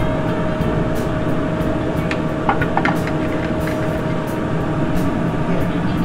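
Steady drone of a commercial kitchen, the running ventilation and lit gas range, with a constant hum. A few light clinks come about two to three seconds in.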